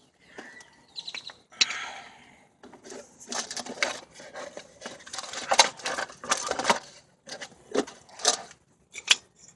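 Brake pads and small metal parts being handled: irregular clicks, knocks and rubbing, busiest in the middle.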